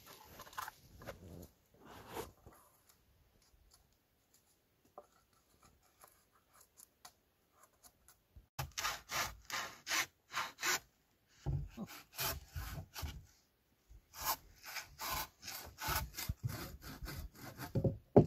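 Handsaw cutting a wooden board in three runs of quick, even strokes, several a second, ending with one loud knock.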